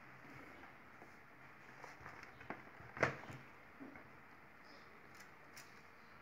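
Quiet room tone with a few scattered clicks and knocks, the loudest a sharp knock about three seconds in.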